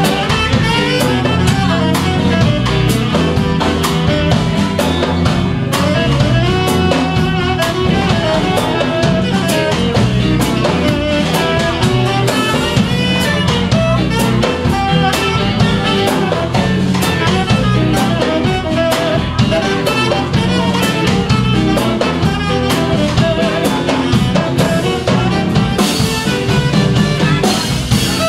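Live band playing an instrumental break: electric guitars, drum kit and saxophone over a steady beat.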